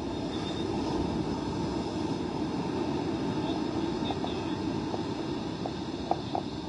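Steady, muffled rumble of wind and surf heard through a plastic underwater camera housing, with a few faint taps near the end.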